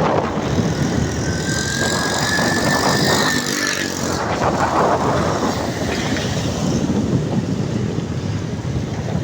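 Car driving on a wet mountain road: steady road and wind noise, with a thin tone that rises slowly for about three seconds, starting about a second in.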